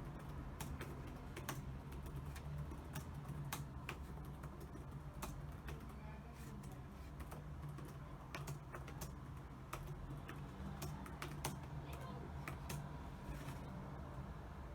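Typing on a computer keyboard: quick, irregular keystroke clicks in uneven runs with short pauses, over a steady low hum.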